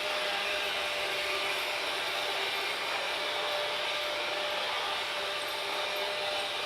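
Freight train running steadily: an even rushing noise of the moving train with a thin steady whine underneath.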